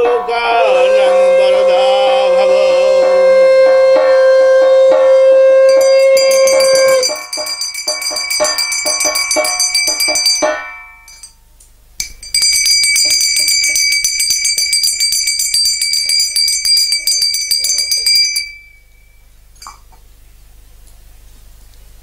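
A conch shell blown in one long held note, joined and then replaced by a bell-metal gong plate (kansar) beaten rapidly with a stick. The gong rings in two spells of several seconds with a short break between them, and the beating stops a few seconds before the end.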